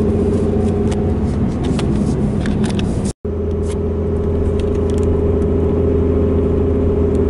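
Ram pickup's diesel engine and road noise heard from inside the cab, a steady drone while it pulls a fifth-wheel camper uphill under heavy load. The sound cuts out for an instant about three seconds in.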